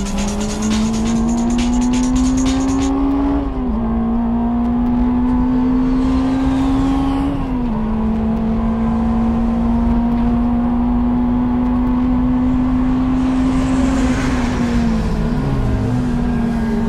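Honda Integra DC5 race car's 2.0-litre four-cylinder engine pulling hard, heard from inside the cabin. Its note climbs and drops sharply at two upshifts, then holds steady at speed. Near the end the note falls away.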